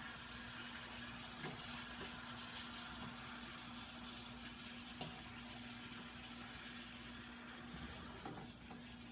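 Sesame-chicken sauce bubbling and sizzling in a pan as it thickens with cornstarch, with a steady low hum underneath and a few faint taps.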